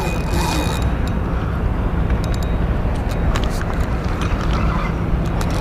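Wind buffeting the microphone as a steady low rumble, with a few light clicks and knocks from a spinning rod and reel being handled.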